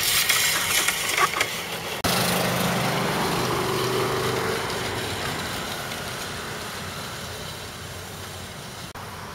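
Push reel mower's blades spinning through grass as it is pushed, a steady whirr that fades gradually as the mower moves away.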